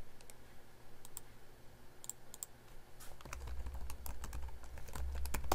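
Computer keyboard keys clicking in scattered keystrokes as a file name is typed, coming faster after about three seconds.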